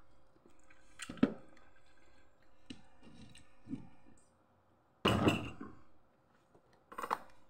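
Tableware being handled during a meal: scattered clinks and knocks of dishes and utensils, a sharp knock about a second in, a louder, longer clatter about five seconds in and another knock near the end.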